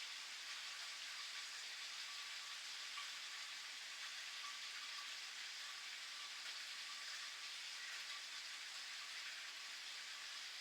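Steady rain pattering, an even hiss of many small drops with no single drop standing out.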